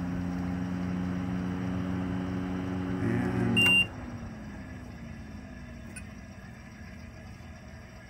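Rheem hybrid water heater's heat pump running with a steady hum. About three and a half seconds in, a control-panel beep sounds as the compressor test is switched off, and the hum cuts out. A low tone then slowly falls in pitch as the unit winds down.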